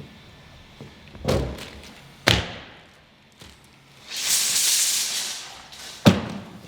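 A series of thuds and knocks: one a little over a second in, a sharper one about a second later, and another near the end. Between the last two comes a rushing hiss lasting about a second and a half.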